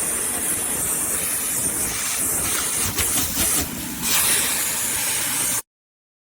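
Dyson handheld vacuum running with a long flexible lint hose attachment, a steady rush of air as it sucks lint from the dryer's lint-trap housing, with a few brief changes as the hose moves. The sound stops dead near the end.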